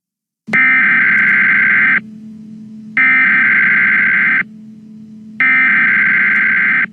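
Emergency Alert System SAME header: three identical bursts of shrill digital data screech, each about a second and a half long and about a second apart, over a steady low hum.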